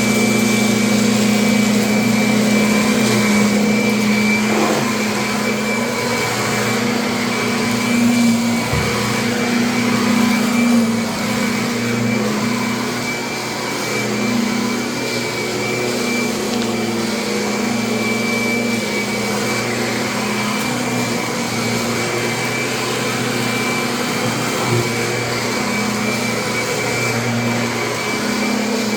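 Kirby upright vacuum cleaner running steadily: a constant motor hum under a thin high whine, with small rises and dips in level.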